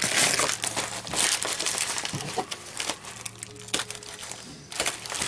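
Plastic parcel packaging crinkling and rustling as it is handled and unwrapped, with spells of loud crackling in the first half and again near the end.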